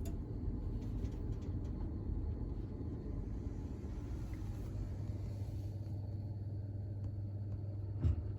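Vaillant gas boiler running, a steady low hum and rumble from its fan and burner after it has been coaxed back into firing. A single click near the end.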